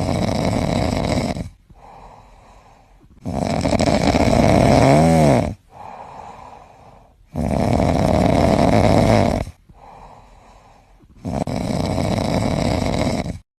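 A sleeping dog snoring: four loud snores, each about two seconds long and some four seconds apart, with quieter breaths between them. The second snore, about five seconds in, carries a brief whistling note.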